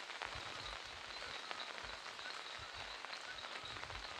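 Steady rain falling, with many separate drops ticking on an umbrella overhead.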